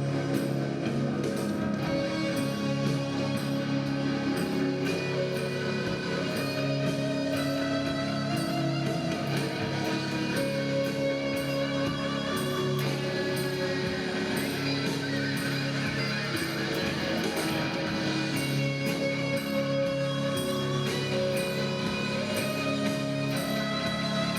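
Instrumental music led by guitar, with held notes that change every second or two over a steady light beat.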